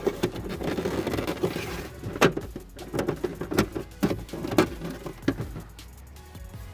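Plastic cabin air filter cover of a Toyota Tundra being slid and pressed into its housing behind the glove box. Plastic scrapes against plastic, with a series of sharp clicks and knocks as its tabs are pushed into place.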